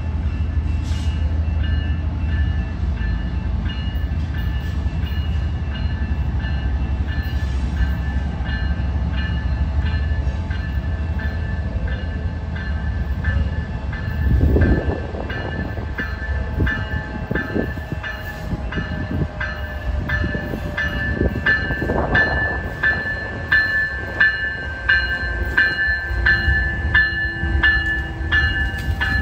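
A railroad grade-crossing bell strikes about twice a second over the low rumble of Canadian National GE diesel locomotives as they approach and pass. Two louder swells come through, about halfway and about three-quarters of the way in.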